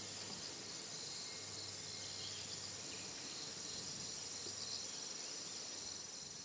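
Insects trilling in a steady, high-pitched chorus, with a single sharp click at the very end.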